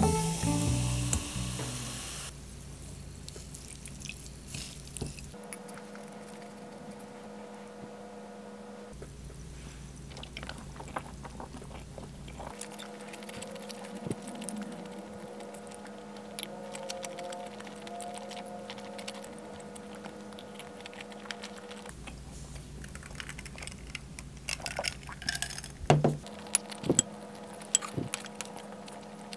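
Water poured from a plastic bottle into a glass of ice for about the first two seconds. Then wooden cutlery tapping and scraping on a ceramic pasta bowl, with sharper, louder clicks near the end as the bowl is scraped clean.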